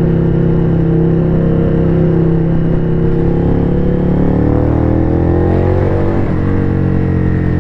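Sport motorcycle engine under the rider, running steadily at first, then climbing smoothly in revs as it accelerates from about three seconds in, pulling evenly through the rev range.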